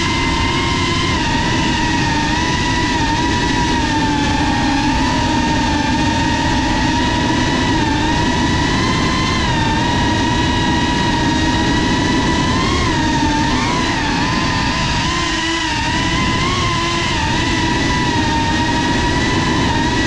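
Cinelog 35 cinewhoop FPV drone's brushless motors and ducted propellers whining steadily in flight, heard from on board. The pitch wavers slightly with throttle, with a brief wobble about two-thirds of the way in.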